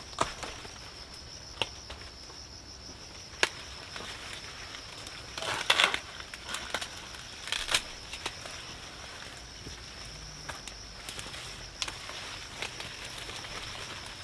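Dry corn leaves and husks rustling and crackling in short bursts, with scattered sharp snaps, over a steady high-pitched insect drone.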